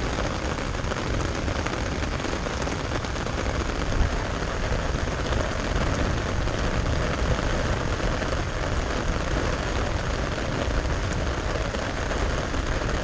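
Thunderstorm wind and rain: a steady rushing hiss with a heavy low rumble of wind buffeting the microphone, and a short thump about four seconds in.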